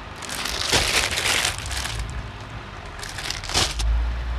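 Clear plastic garment bag crinkling and rustling as a packed T-shirt is handled, in two spells, with a low thump near the end.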